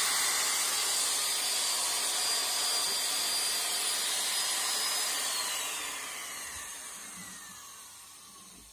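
Electric power tool spinning a buffing pad at steady speed with a high whine, then switched off about five seconds in, its whine sliding down in pitch as it spins down and fades.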